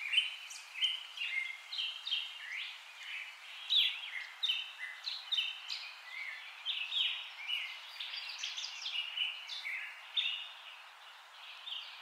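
Small birds chirping and twittering without a break, many short quick notes and little rising and falling glides, over a faint steady hiss.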